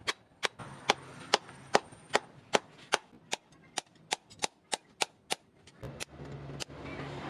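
Hammer blows on metal at an anvil, about two to three sharp strikes a second, quickening briefly past the middle and stopping about six seconds in. A low hum comes up near the end.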